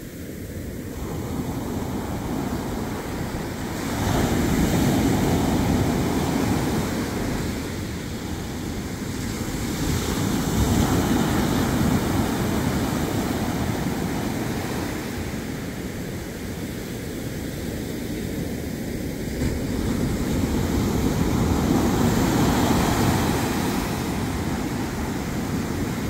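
Ocean surf breaking and washing up over a sandy beach: a rushing, foaming noise that swells and eases in slow surges several seconds apart.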